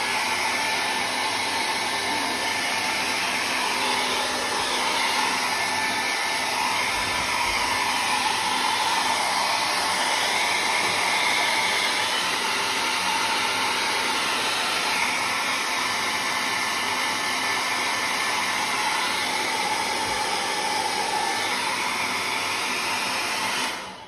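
Handheld electric hair dryer running steadily: a constant rush of air with a faint whine, switched off just before the end.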